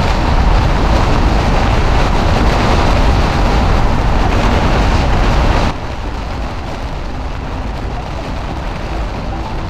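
Heavy rain and pea-sized hail pelting a car's roof and windshield, heard from inside the moving car over a low rumble of road and wind noise. The downpour is loud, then drops abruptly to a steadier, lighter hiss about two-thirds of the way in.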